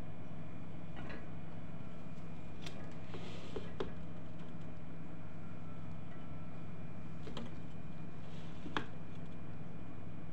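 Spatula stirring cooked rice in a non-stick pot, giving a few short clicks and scrapes against the pot, over a steady low hum.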